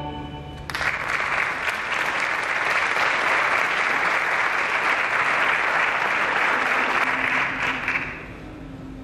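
Audience applause breaks out abruptly less than a second in, just as the last chord of the orchestra and choir dies away, holds steady, then fades out near the end.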